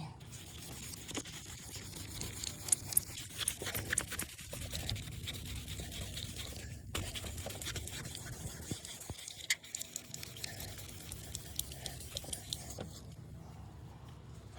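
Sandpaper being rubbed by hand over a plastic headlight lens: continuous scratchy rubbing with small crackles, pausing briefly about halfway and easing off near the end. The lens is being sanded to remove oxidation before a ceramic coat.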